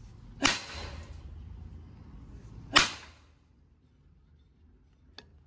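Two heavy hammer blows on a flat steel sheet, about two seconds apart, each a sharp crack with a short metallic ring.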